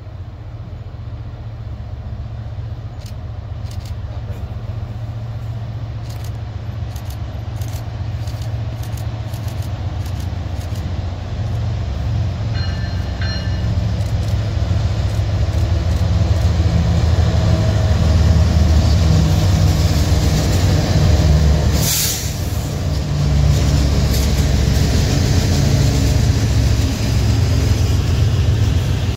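CSX freight train's diesel locomotives approaching and passing, their deep engine rumble growing steadily louder, followed by double-stack intermodal container cars rolling by on the rails.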